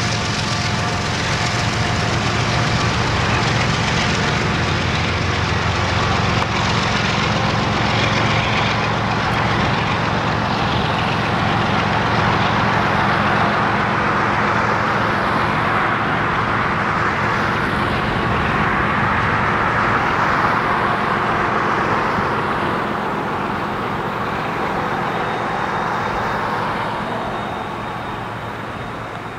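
Norfolk Southern freight train passing: diesel locomotives running with a steady low drone, and a long line of freight cars rushing and rumbling on the rails, fading as the train moves away near the end.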